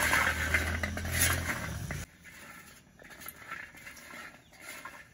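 Shell-on cashew nuts roasting in a metal pan over a gas burner, stirred with a long stick: the stick scrapes and rattles the nuts against the pan while they crackle. A loud steady rushing noise covers the first two seconds and cuts off abruptly, leaving the quieter scraping and crackling.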